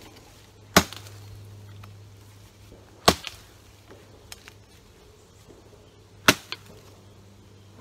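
FiveJoy survival shovel's blade hacking into a wooden log: three sharp chops, roughly two to three seconds apart.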